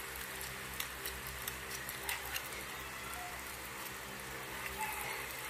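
Carrot balls deep-frying in hot oil in a small saucepan: a steady sizzle with scattered small crackles and pops.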